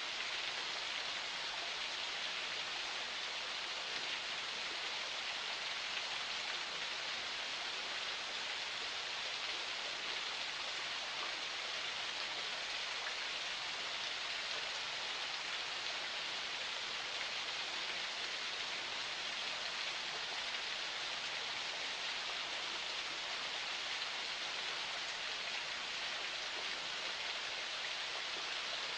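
Small forest spring flowing: a steady, even trickle and rush of water with no changes.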